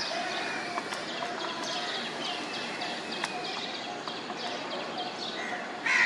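Birds chirping in many quick, short high notes over steady background noise, with a brief louder sound right at the end.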